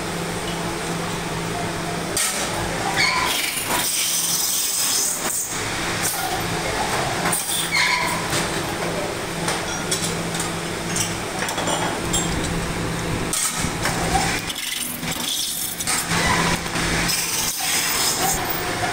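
Steady hum and whir of running workshop machinery, with a few scattered knocks and clinks.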